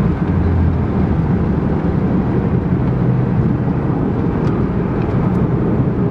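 Ford Mustang (SN95) driving at about 60 mph, heard from inside the cabin: a steady low engine drone mixed with road and tyre noise.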